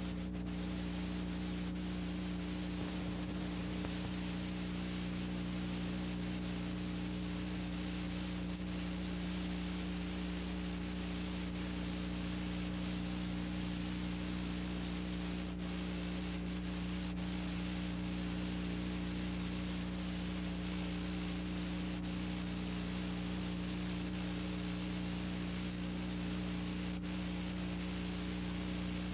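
Steady electrical hum under an even hiss, with a few faint clicks: a noise-only soundtrack with no other sound.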